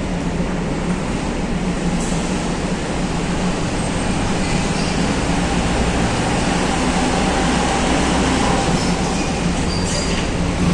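Coach bus driving slowly onto a ferry's enclosed vehicle deck, its engine running over a steady low machinery hum. It grows a little louder from about halfway in as the bus comes closer.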